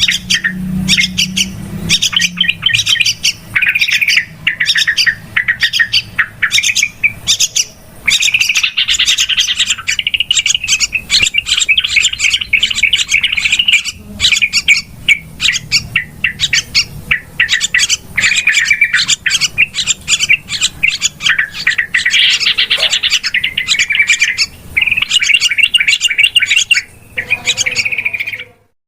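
Yellow-vented bulbuls (trucukan) chattering noisily: rapid runs of sharp, high chirps with short pauses between bursts, the excited call used as a lure. The calling stops briefly near the end.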